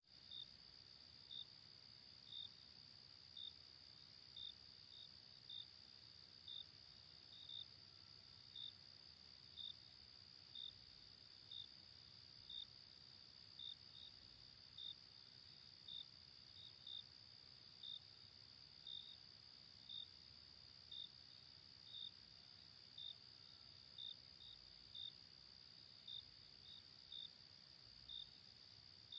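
Faint insect chorus: a steady high-pitched buzz, with a short chirp repeating about once a second.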